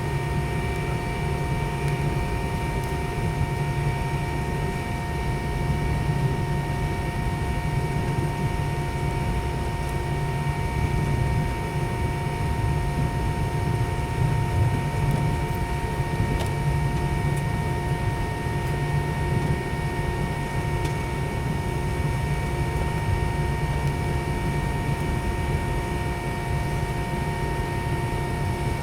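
Cabin noise inside a McDonnell Douglas MD-90 on the ground: its rear-mounted IAE V2500 jet engines idling with a steady whine of several high tones over a low rumble.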